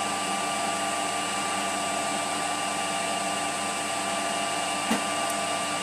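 Emco PC50 CNC lathe running at 1500 rpm while turning a brass rod, a steady machine whine with several held tones over an even noise. There is a faint click about five seconds in.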